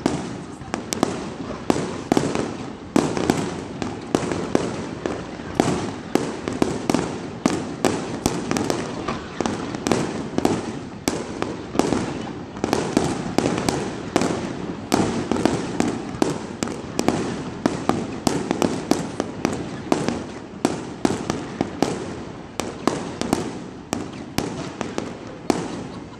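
Fireworks display: aerial shells bursting one after another, several sharp bangs a second over steady crackling.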